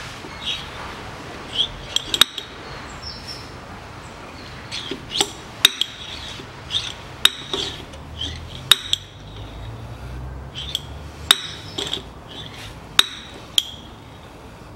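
Hand-operated oil pump being worked stroke after stroke, pumping gear oil into a Land Rover Discovery 3 rear differential: short squeaks and sharp clicks at irregular intervals.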